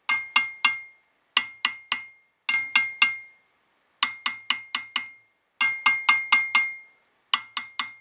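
A hammer lightly tapping the webs of a BSA A65 crankshaft in quick runs of three to five strikes, each giving a short, sharp metallic ring. This is a tap test for cracks: the owner judges this crank okay, since a cracked crank gives a dull note.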